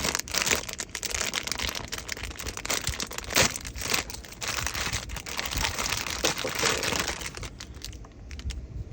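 Plastic blind-box packaging crinkling and crackling as it is handled and opened, a dense run of small rustles and crackles that thins out near the end.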